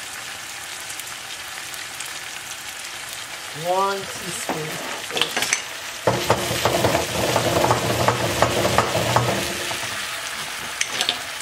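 Tuna steaks sizzling in oil and lemon juice in a nonstick frying pan. A little before four seconds in there is a short pitched sound that rises and falls. From about six seconds in comes a louder stretch of clatter and scraping as the pan is moved on the stove's grate.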